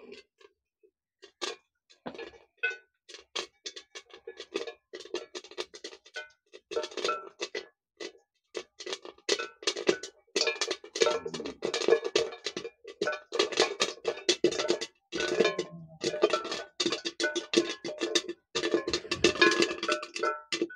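Maize kernels popping inside a kadai covered with a metal lid. Each pop is a sharp tick against the metal with a short ring. The pops are scattered at first and come thick and fast from about halfway through.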